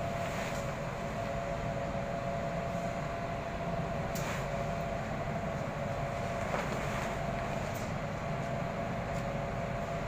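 A steady mechanical hum with a constant mid-pitched whine over a low rumble, with a few brief rustles and clicks as a plastic tarpaulin is dragged over the load.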